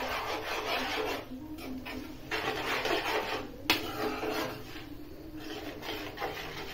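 Metal spoon scraping and stirring through thick gravy in a metal frying pan, in stop-start strokes, with a sharp clink of spoon on pan about four seconds in.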